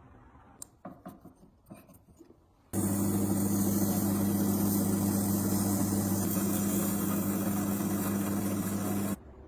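An electric motor is switched on and runs steadily for about six seconds with a strong low hum, then is switched off abruptly. It follows a few light knocks.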